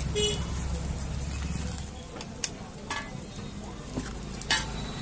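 Egg sizzling as it fries on a hot flat iron griddle (tawa), with a metal spatula striking the pan in several sharp clicks in the second half. A low hum underneath stops about two seconds in.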